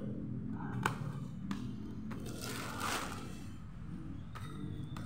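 A plastic bag rustling and crinkling as snap-button card wallets are handled. There are a few light clicks in the first second or so, and a longer crinkle about halfway through.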